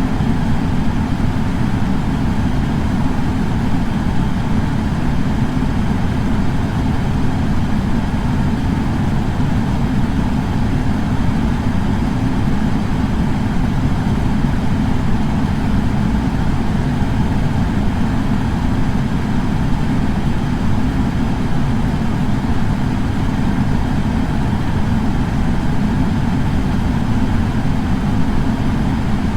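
Air purifier running steadily: an even, deep fan whoosh with no change.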